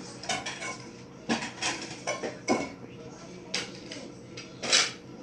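Dishes and cutlery clattering: a string of sharp, irregular clinks and knocks, the loudest one near the end, over a faint steady hum.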